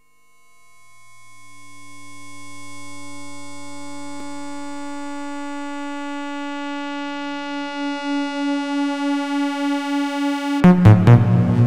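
Electronic synthesizer drone fading in: a sustained tone rich in overtones over a faint low hum. It begins to pulse in level past the halfway point. Near the end a loud, low pulsing bass and noisy clicking textures cut in abruptly.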